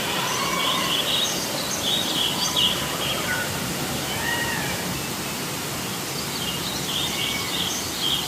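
Jungle sound effects from a restaurant show's sound system: short, high animal calls and chirps over a steady background hiss.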